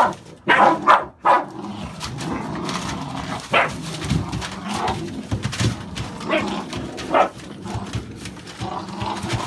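American Staffordshire bully puppies play-fighting over a cloth: continuous low play growls broken by short barks and yips every second or so.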